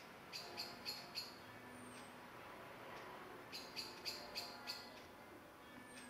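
Small bird calling: two short runs of high, clipped notes, about four a second, one near the start and one past the middle.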